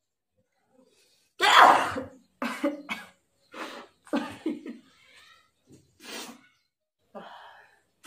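A woman sneezing and coughing after sniffing red chilli powder. The loudest burst comes about a second and a half in, followed by about five shorter ones.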